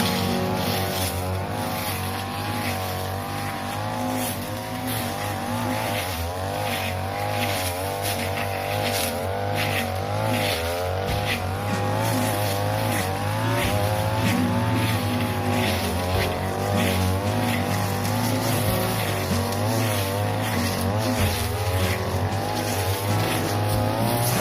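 42cc brush cutter with a grass blade running at high revs while cutting tall, flattened grass, its engine note wavering up and down as the blade bites in and frees up, with a quick rustling swish of grass against the blade.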